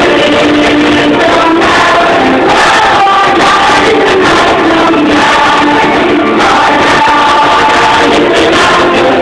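A group of children singing a worship song together, loud and steady, with sustained sung notes that step from pitch to pitch.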